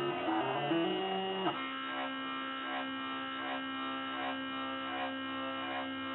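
Motors of a small home-built GRBL CNC mini router running: a steady electric whine with several tones, shifting in pitch during the first second and a half, then holding steady.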